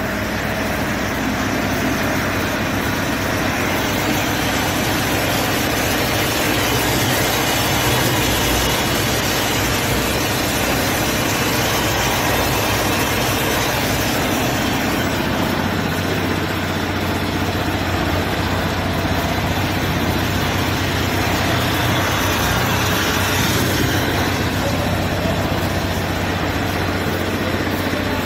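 Industrial electric roaster running, with grain in its drum: a steady machine hum under a continuous, even noise that holds level without a break.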